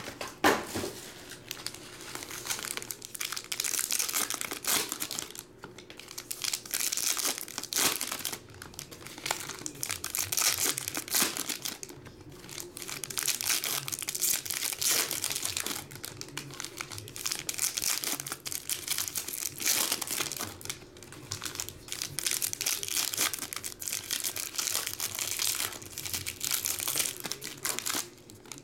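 Foil wrappers of 2021 Panini Select baseball card packs being torn open and crinkled in the hands. The rustling comes in repeated bursts with brief pauses between them.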